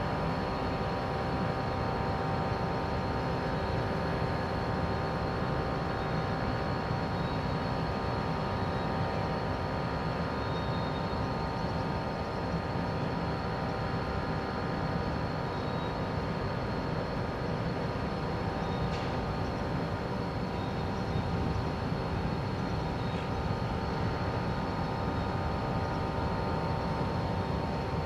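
Ship's engines and machinery droning steadily: a hum of several steady tones over a low rumble.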